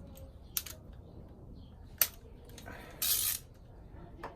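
A few sharp metallic clicks and a short ratcheting rasp from a torque wrench working the frame slider bolt as it is tightened.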